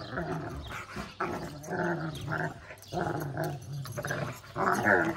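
Two eight-month-old Kangal puppies growling in a series of short bursts as they play-fight, the loudest just before the end.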